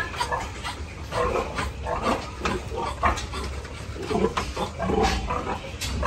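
Sows in farrowing crates grunting: many short, irregular grunts overlapping, over a steady low hum.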